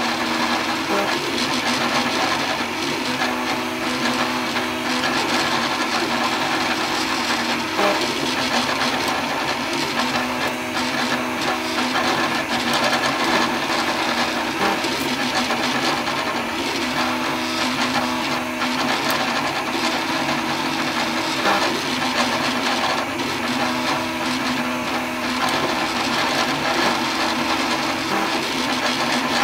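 3D printer running a print: a steady whir from its fans with motor tones that start, stop and shift pitch every second or two as the print head moves.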